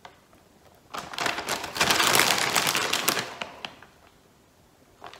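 Plastic bag of shredded mozzarella crinkling and rustling as a handful of cheese is pulled out of it. The crackly rustle starts about a second in and lasts two to three seconds.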